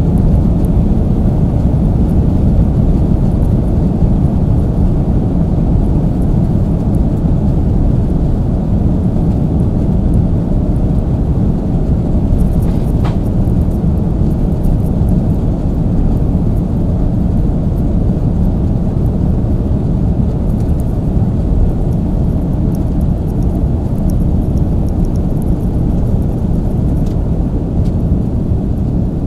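A jet airliner's engines and wheels heard inside the cabin as it rolls along the runway: a loud, steady low rumble.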